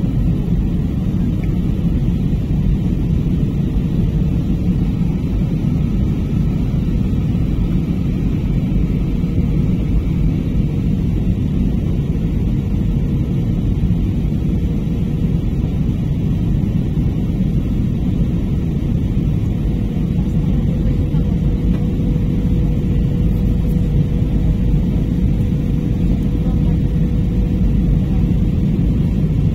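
Airliner cabin noise in flight: a steady low rumble of engines and airflow heard from inside the cabin, with a faint steady hum.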